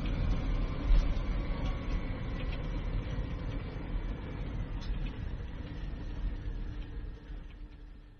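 Airliner cabin during landing: the steady low rumble of the engines and airframe, with a faint whine, light clicks and rattles, and a thump about a second in. The sound fades out near the end.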